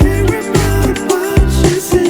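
Background music with a steady beat and heavy bass, in a funk or soul style.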